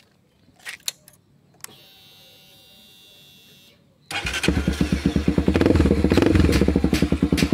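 Honda CB300R single-cylinder engine started with its exhaust running straight through a megaphone slip-on whose internal baffle has come out. A few clicks and a faint steady hum as the ignition is switched on, then about four seconds in the engine catches and settles into a loud, rapid, even popping idle.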